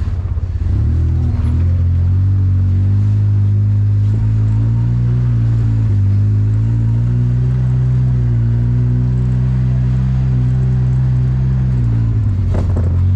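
Polaris RZR 800 S side-by-side's twin-cylinder engine running under throttle as the machine drives over a dirt trail. The revs pick up about a second in, then hold nearly steady, with a brief change near the end.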